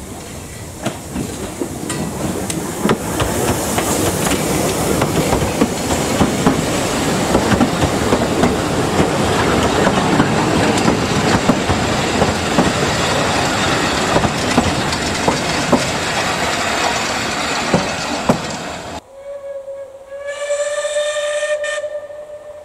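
Narrow-gauge steam train passing close by, its coaches' wheels clicking over the rail joints in a continuous clatter. After a cut, a steam locomotive whistle gives one steady blast of about two seconds near the end.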